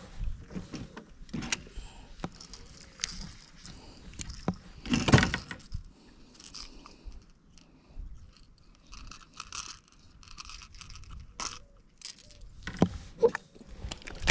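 Small metallic clicks, rattles and scrapes of fishing gear being handled: a metal lip gripper and the hooks of a topwater lure being worked free of a caught fish's mouth. One louder knock comes about five seconds in.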